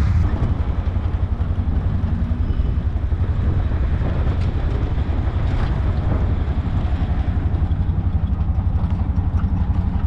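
Auto-rickshaw (tuk-tuk) engine running as it drives along the road, heard from inside the open passenger cabin: a steady, rapid low putter with road noise.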